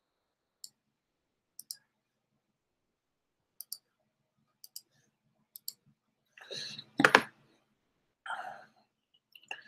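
Computer mouse clicking: faint clicks in close pairs about once a second. Near the end comes a louder sharp click with two short hissy noises around it.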